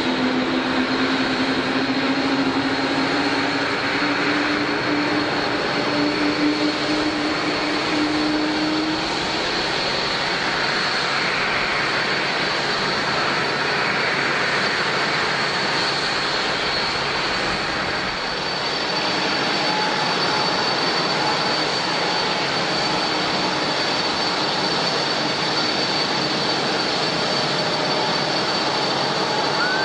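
Jet airliner engines running at idle on the apron: a steady rushing hum with a thin high whine. A lower tone slowly rises in pitch over roughly the first nine seconds, then drops out.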